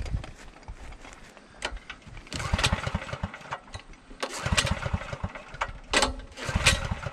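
Portable generator's small gas engine being pull-started by its recoil cord, about three or four pulls; each spins it over briefly and it does not catch. It won't start because the fuel valve is still shut.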